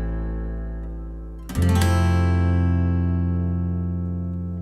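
Background music: a guitar chord ringing and fading, then a second chord strummed about a second and a half in that rings on and slowly dies away.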